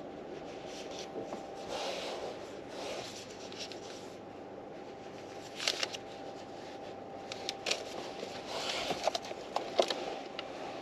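Soft rustling and handling noises with a few small clicks and taps, over a steady low hum.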